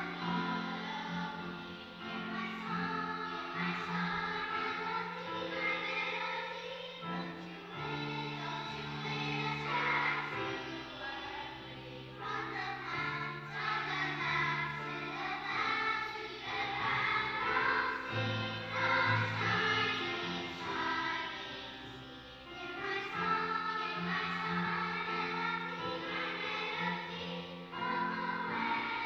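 Children's choir singing a song together, with held low accompaniment notes that change every few seconds.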